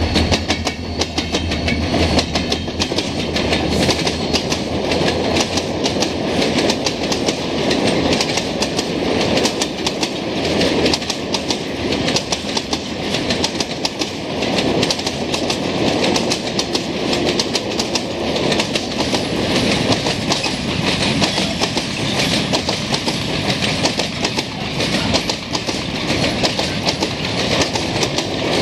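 A freight train of loaded and empty tank wagons passes close by, its wheels clattering steadily over the rail joints. The low hum of the two Renfe class 333 diesel-electric locomotives fades within the first couple of seconds as they go by.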